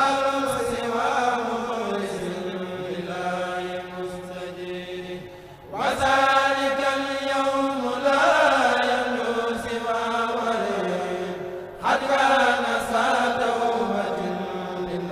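A Mouride kourel of young men chanting a khassida through microphones, in long held melodic phrases with two short breaks for breath, about six and twelve seconds in.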